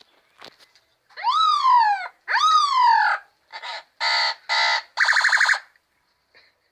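A person imitating a police siren with their voice: two wails that rise quickly and slowly fall, then four short, steady, buzzy tones.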